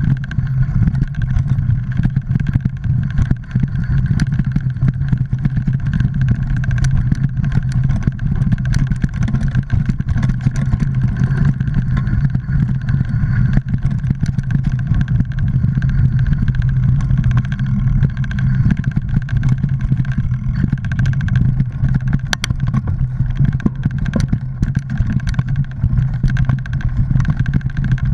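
Mountain bike ridden over a rocky, root-strewn dirt trail, heard from a camera mounted on the bike or rider: a steady low hum and rushing wind noise with frequent small knocks and rattles from the bike.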